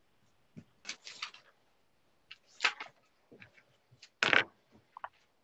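Scattered brief rustles and clicks over a video call, with gaps of silence between them and a louder short noise about four seconds in.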